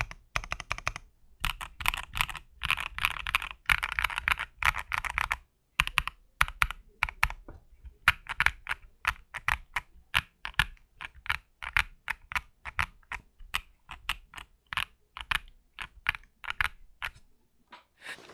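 Mechanical keyboard with factory-lubed Wuque Studio WS Quartz linear switches being typed on, with a deep, thocky sound. Quick dense runs of keystrokes come first, then slower separate keystrokes that stop near the end.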